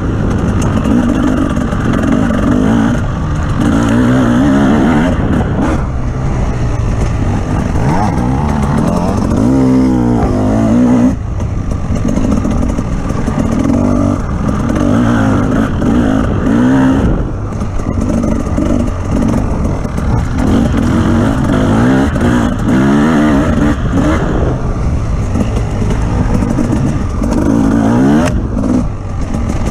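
Offroad vehicle engine running under load, revving up and down again and again, with brief lifts off the throttle.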